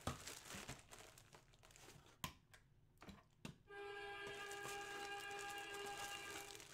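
Plastic bag crinkling and rustling as a bagged jersey is handled in a cardboard box, with a few sharp clicks. About halfway through, a steady held pitched tone comes in and stops shortly before the end.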